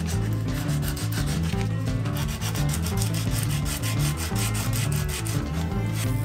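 Sandpaper rubbed by hand back and forth along an oak knife handle in quick, even strokes, over background music.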